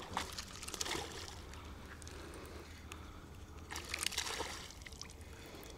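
Hooked trout splashing at the water's surface as it is pulled toward the bank, in two bouts: one right at the start and another around four seconds in.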